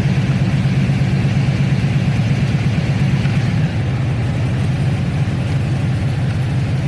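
Pickup's cammed LS V8 running steadily with a fast, even low pulse through long-tube headers and Flowmaster exhaust, with the electric radiator fans running; the sound drops a little just past halfway.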